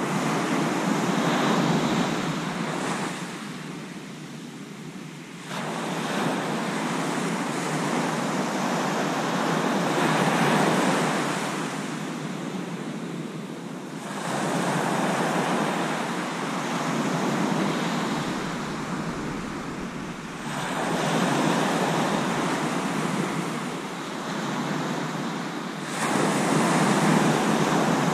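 Sea surf breaking on a beach, a steady rushing noise that swells and fades every few seconds as each wave comes in and washes back.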